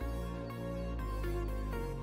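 Background music: an electronic tune with a melody over a heavy, sustained bass line that comes in at the start.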